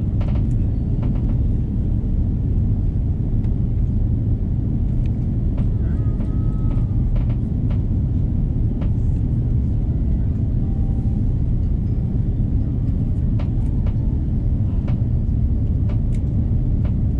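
Airbus A330 cabin noise: a steady, deep rumble of engines and airflow heard from inside the passenger cabin, with a few faint clicks.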